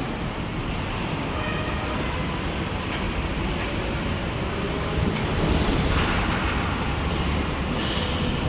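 Steady low rumble of vehicle or machinery noise, with a hissier stretch about six seconds in.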